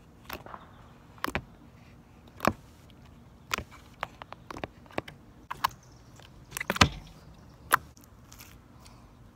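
Homemade borax slime being poked and pressed with fingers for ASMR, making about a dozen irregular sharp clicks and pops, the loudest nearly seven seconds in.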